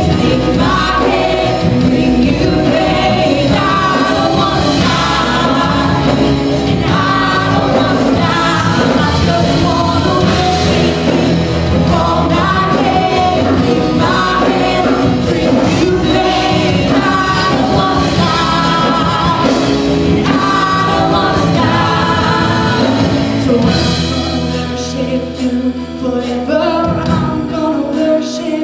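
Live contemporary worship band: several women singing together over guitars, keyboard and drums. About four seconds before the end the band drops back and the sound grows quieter and thinner.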